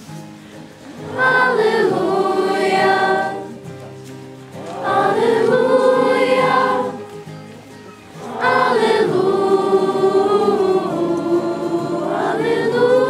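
Choir of girls' voices singing unaccompanied church music in three long held phrases, with brief pauses for breath between them.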